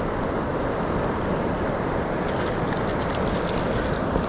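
Steady rushing of wind on the microphone and river water, with a few faint light clicks in the second half.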